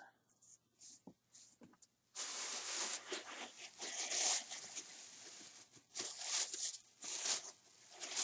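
A white gift bag rustling and crinkling as it is handled and items are pulled out of it. The rustling runs steadily for about three seconds, then comes in shorter bursts.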